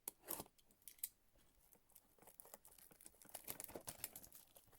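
Faint handling noise of a shrink-wrapped cardboard card box: light plastic crinkling with small taps and clicks, a couple of sharper clicks in the first second, then busier rustling and ticking from about two seconds in.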